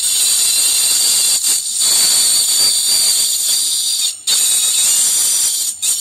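Metal scrape sound effect: a harsh, high-pitched, hissing screech of metal scraping, held for several seconds and breaking off briefly about four seconds in and again near the end.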